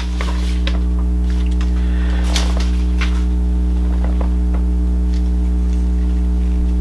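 Steady electrical mains hum with a ladder of overtones, with scattered faint clicks and rustles of a small plastic figure and its pieces being handled.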